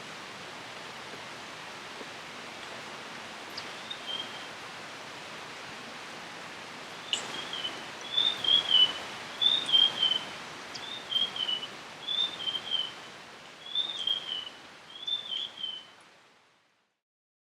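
Steady hiss of rain in a rainforest, with a bird calling over it from about seven seconds in: a short two-note call repeated several times, roughly every second and a half, before the whole sound fades out near the end.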